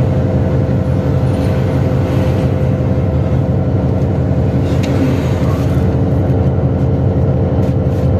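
Engine and road noise of a moving vehicle, heard from on board: a steady, loud drone with a constant hum running through it.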